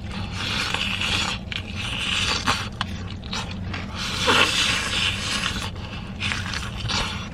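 Crackling and crunching of crispy fried chicken crust as the hot chicken is pulled apart and eaten, in uneven patches a second or so long, over a low steady hum.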